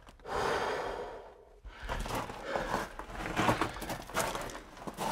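A long breathy exhale, then footsteps crunching and scraping on the loose rock floor of a mine tunnel, with scattered small knocks.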